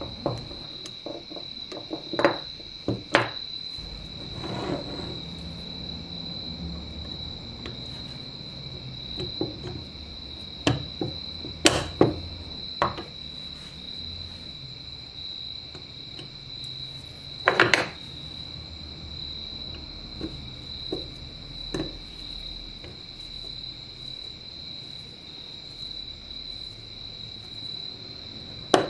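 Sharp metallic clicks and knocks of small replica-revolver parts and steel tools (forceps, screwdriver) being handled and set down on a wooden bench during reassembly, scattered and irregular, with a few louder knocks. A steady high-pitched whine runs underneath.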